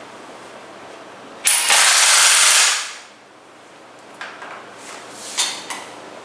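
ZIPPTORK cordless impact wrench hammering on a flange bolt for just over a second, then stopping as it reaches its set torque. A few light knocks follow.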